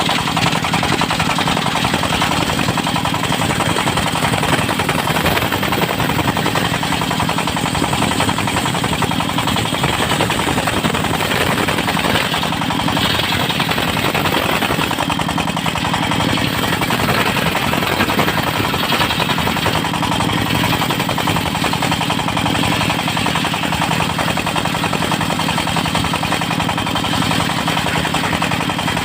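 A portable circular sawmill running steadily, its engine chugging with a rapid, even pulse and a constant loud drone.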